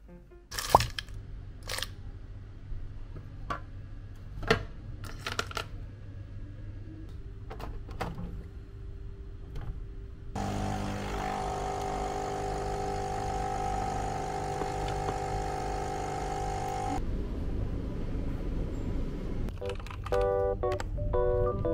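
Scattered sharp taps and knocks over a low hum, then a coffee machine's pump runs steadily for about six seconds and stops suddenly. Piano music comes in near the end.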